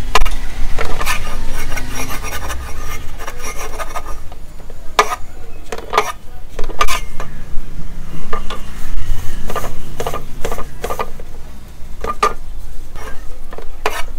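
Hands pressing and rubbing chop slabs in dry breadcrumbs on a steel plate: a gritty scraping and rasping, with irregular knocks and clatter of the slabs, plate and wooden board.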